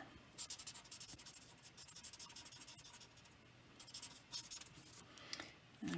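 Marker tip rubbing in quick, repeated strokes on cardstock while colouring in, faint and scratchy, a little louder around four and five seconds in.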